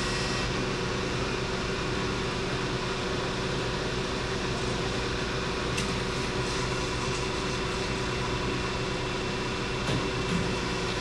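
Marvel-Spartan PA13/2 horizontal bandsaw running in its automatic cycle: a steady hum from the 5 hp blade motor and 1 hp hydraulic pump with the blade running as the head comes down through the cut. A couple of faint knocks near the end.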